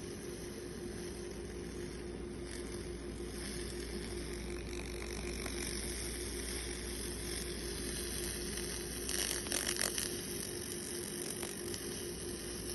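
Laser cleaning machine running with a steady hum and hiss, with a brief burst of crackling about nine seconds in.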